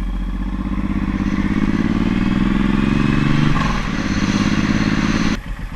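Suzuki Boulevard M109R's V-twin engine pulling away under acceleration, its pitch rising for about three and a half seconds, dropping at a gear change, then running steadily over a hiss. The sound cuts off abruptly near the end.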